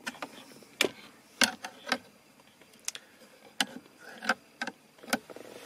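Irregular sharp clicks and taps of a long screwdriver working the screws that fix the radio housing below the centre air vent of a BMW E36 dashboard: the tip knocking in the screw heads against metal and plastic, about a dozen times.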